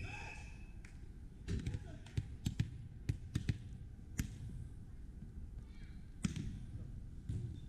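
Volleyball bounced several times on a hardwood gym floor, a string of sharp knocks, then one sharp hit near the end as the server strikes the ball. Voices murmur in the gym.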